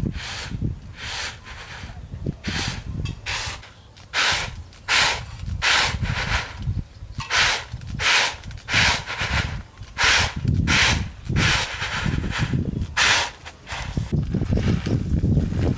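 Peanuts rattling and rustling in a flat woven bamboo tray as they are tossed again and again, about one and a half tosses a second, the papery skins being winnowed off. Near the end the tossing stops and the peanuts are rubbed by hand in the tray, a softer, lower rustle.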